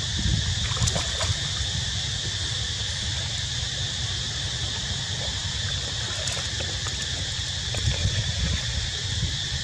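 Soft water sounds from a monkey swimming through still water, over a steady high hiss and a low wind rumble on the microphone.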